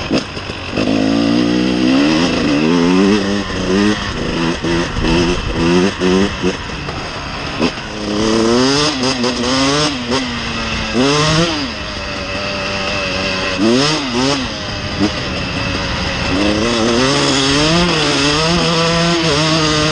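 KTM 300 EXC TPI single-cylinder two-stroke engine revving under hard acceleration. Its pitch climbs and drops again and again as the rider works the throttle and shifts gears.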